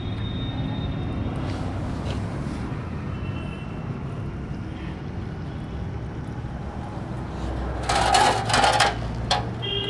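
Steady low rumble of road traffic, with a few faint short high beeps. About eight seconds in comes a loud noisy burst lasting about a second.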